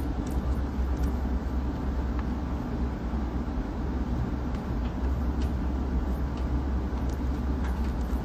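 Steady low hum of background noise with a few faint, short clicks.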